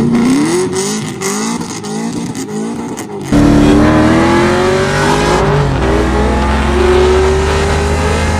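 LS1 V8 engine revving hard under acceleration, its pitch sweeping up through the revs. About three seconds in it cuts abruptly to a louder, steadier run at high revs, with the pitch slowly climbing.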